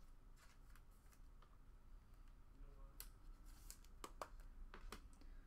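Near silence with faint clicks and light rustling of trading cards being handled on a tabletop, most of them in the second half.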